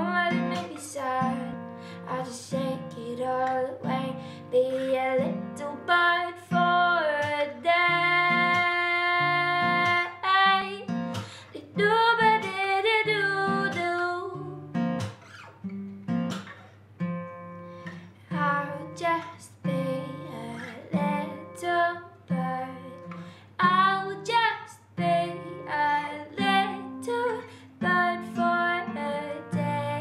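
Acoustic guitar strummed in a steady rhythm, with a woman's voice singing long held notes in places.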